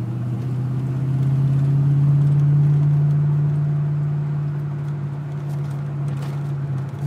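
Ford Mustang 5.0 V8 engine running steadily under light throttle while driving, its drone swelling about a second in and easing off later; with a little gas the cold-running misfire and bucking have smoothed out.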